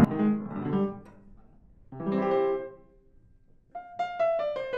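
Yamaha U1 upright piano being played: a chord at the start that rings and dies away, a second chord about two seconds in, then a run of notes falling in pitch starting near the end.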